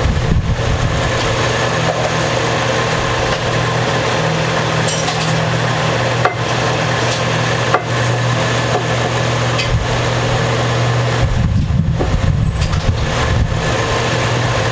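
Steady, fairly loud machine-like hum over even background noise, with a couple of faint clicks in the middle.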